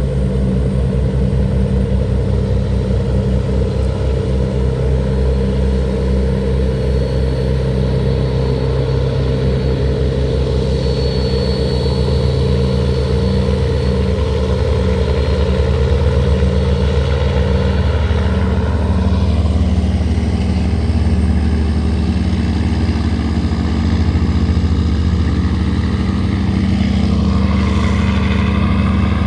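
River tugboat engines running hard under load, towing laden cargo barges against a strong current, with a steady deep thudding beat ("boom boom boom"). The engine note shifts in pitch about two-thirds of the way through and again near the end.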